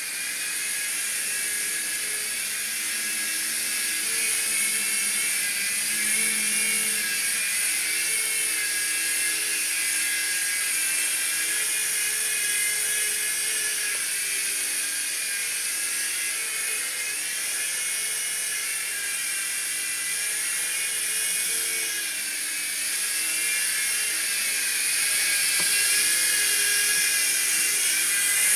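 Small electric Falcon X RC helicopter in flight: a steady high motor whine and rotor whir whose pitch wavers up and down as the throttle changes.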